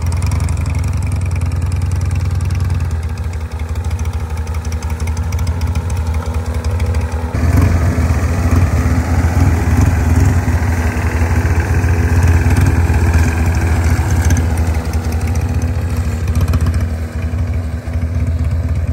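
Harley-Davidson motorcycle's V-twin engine running steadily. It gets louder and busier from about seven and a half seconds in, then settles back after about fourteen seconds.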